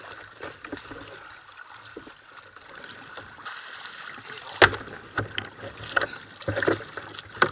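Sea water washing against a plastic sit-on-top kayak in a steady hiss, with a sharp knock against the hull a little past halfway and several lighter knocks after it.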